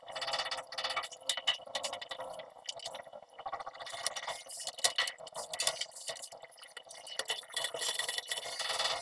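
White PP-R plastic water pipes and fittings knocking, clicking and scraping against each other as they are handled, in short irregular clicks.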